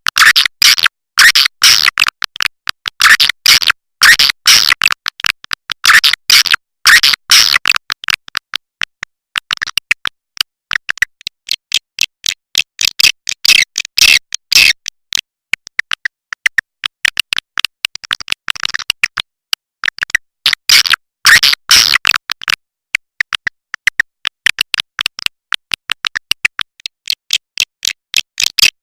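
Swiftlet lure call: a recording of swiftlets' rapid, dense chattering chirps and clicks, thin with no low end, coming in busy clusters with quieter spells between. It is the calling sound played in swiftlet houses to draw the birds in to roost and nest.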